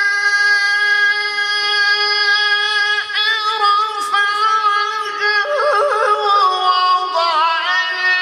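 A male Qur'an reciter holding one long, high, steady note of melodic tilawah for about three seconds, then weaving it through quick wavering turns that settle to a lower pitch near the end.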